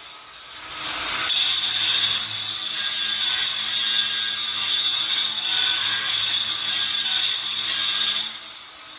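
Cordless angle grinder cutting stone: a steady, high-pitched grinding whine that starts about a second in and stops near the end.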